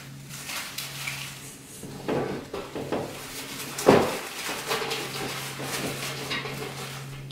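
Handling noise as artificial flower stems are pushed into a round metal wall tin: rustling and light knocks, with one louder knock about four seconds in.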